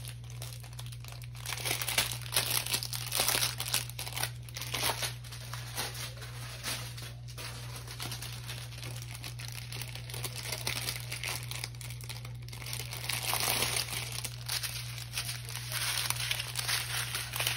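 Plastic packaging crinkling and rustling in irregular bursts as bags of diamond painting drills are handled.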